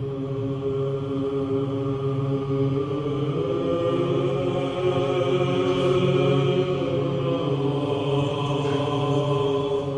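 Background music: low voices chanting in long held notes over a steady drone.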